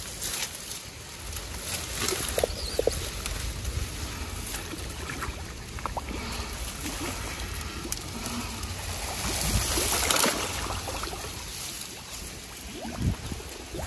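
Water sloshing and gurgling as spearfishermen in wetsuits slip into and move through a narrow, grassy channel, with scattered small splashes; the sloshing grows louder about ten seconds in.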